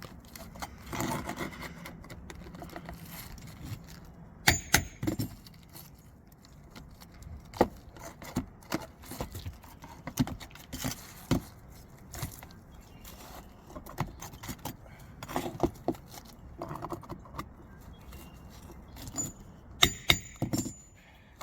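A steel roof snake being worked under a roof shingle to reach and pull a nail: irregular scraping with sharp metallic clicks and knocks, the loudest about four and a half seconds in and near the end.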